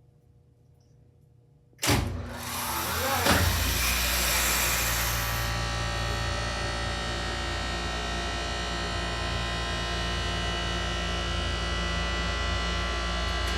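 KONE hydraulic elevator power unit: the pump motor starts suddenly about two seconds in, winds up over a second or so, then runs with a steady hum and whine as it pumps oil to raise the car.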